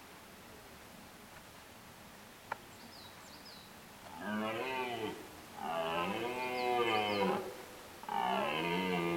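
Twelve-point red deer stag giving rutting calls: three long, deep calls in quick succession, the first about four seconds in, each rising then falling in pitch. A single sharp click comes shortly before them.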